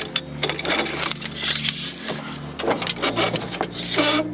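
Irregular knocks, clicks and scraping from hands and tools working on a chainsaw mill attachment while it is clamped and tightened, over a steady low hum.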